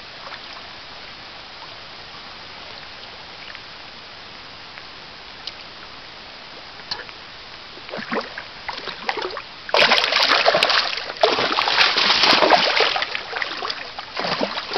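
Shallow stream running steadily, then spawning sockeye salmon splashing and thrashing at the surface: a few scattered splashes about eight seconds in, turning into loud, continuous, irregular splashing from about ten seconds in.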